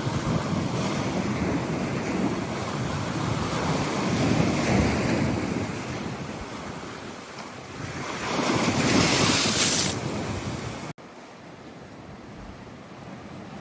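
Bay waves breaking and washing on the shore, with wind buffeting the microphone; the surf swells louder about four seconds in and again about nine seconds in. About eleven seconds in the sound cuts suddenly to a quieter, steady rush of water and wind.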